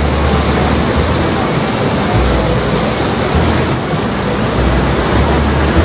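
Water rushing steadily, with wind rumbling on the microphone in gusts that come and go.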